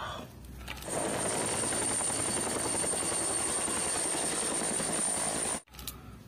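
Helicopter hovering low, its rotor beating steadily with a thin high whine over it. The sound starts about a second in and cuts off suddenly near the end.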